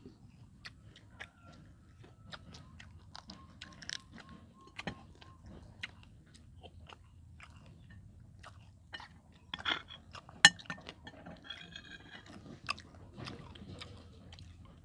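Close-up chewing and crunching of crispy fried rat: irregular crisp bites and crackles between the teeth, with one sharp, louder crunch about ten and a half seconds in.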